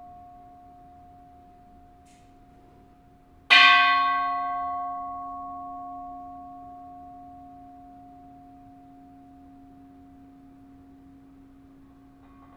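A Buddhist temple bell struck once about three and a half seconds in, its bright attack giving way to a long ring of a few steady tones that fades slowly. The tail of an earlier strike is still fading at the start.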